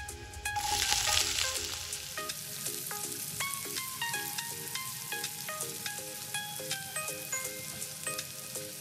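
Chopped onion hitting hot oil in a frying pan: a loud sizzle bursts up about half a second in, then settles into steady frying as the onion is stirred with a spatula. Light background music of short bright notes plays throughout.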